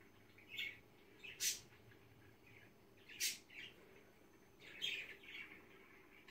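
A bird chirping and squawking faintly in short, scattered calls, about five in a few seconds.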